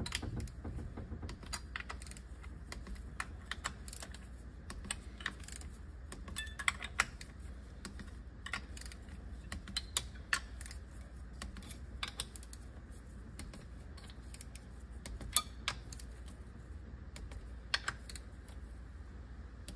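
Light, irregular clicks and taps of a torque wrench and socket working around the aluminium valve body bolts of a Subaru 4EAT transmission as they are tightened to 80 inch-pounds.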